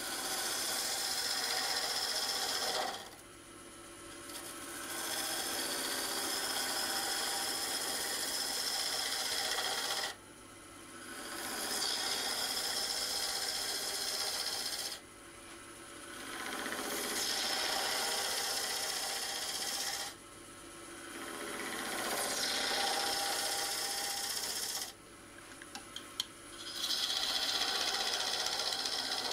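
Turning tool cutting a spinning piece of yew wood on a wood lathe, with shavings flying off: about six cutting passes of a few seconds each, with short pauses between as the tool is eased off. The lathe's steady hum carries on under the pauses.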